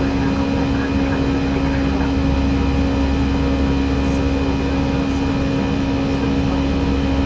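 Steady cockpit noise inside an Airbus A319: an even rush of engine and airflow noise with a constant low hum, and a few faint clicks around the middle.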